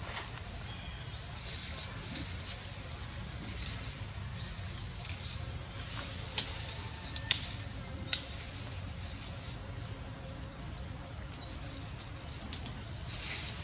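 Small birds chirping in many short, high, rising and falling calls over a steady high hiss. A few sharp clicks come between about six and eight seconds in and again near the end, over a low rumble.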